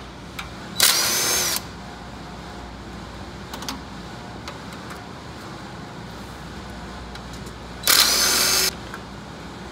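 A cordless DeWalt power tool runs in two short bursts, each under a second long, about a second in and again near the end, with a high motor whine. It is spinning bolts out through a long socket extension.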